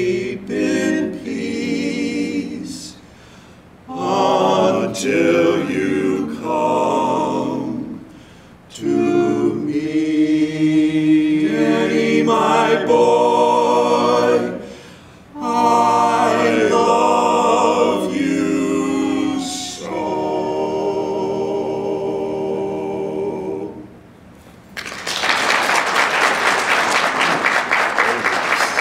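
Male barbershop quartet singing a cappella in four-part close harmony, in phrases with short breath pauses, ending on a long held chord. About 25 seconds in, the audience breaks into applause.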